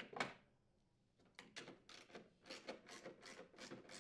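3/8-inch socket ratchet clicking faintly as it turns out a snowblower chute mounting bolt, about four or five clicks a second starting just over a second in, after a single short scrape of the tool at the start.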